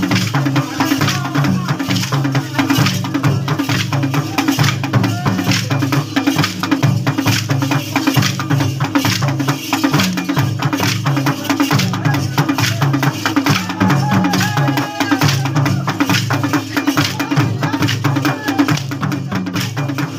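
Drumming for a Shaila (Saila) stick dance, with the dancers' wooden sticks clacking against each other in a quick, steady rhythm.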